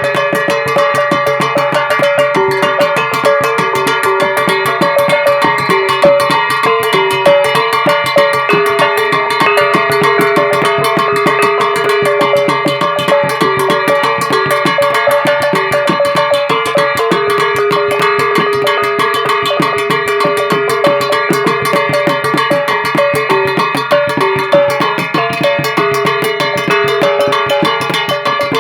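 Music with fast, busy percussion and a repeating melody of short notes.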